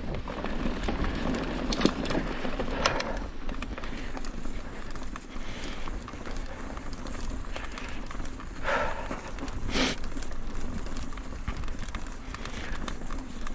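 Mountain bike riding over a dirt trail: a steady rolling rumble of tyres and drivetrain, with a few brief clatters and rattles as it goes over bumps.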